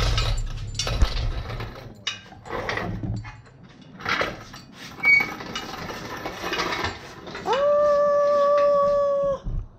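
Engine hoist rolled across a concrete floor with an engine block hanging from it on chains: irregular clanks, chain clinks and caster rattles. Near the end a steady high-pitched tone swoops up, holds for about two seconds and stops, louder than the rattling.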